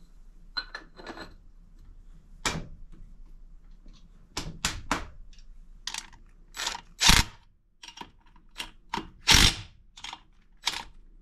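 A string of irregular sharp metal knocks and taps from work on a steel frame and wheel, about fifteen of them, the heaviest about seven and nine and a half seconds in.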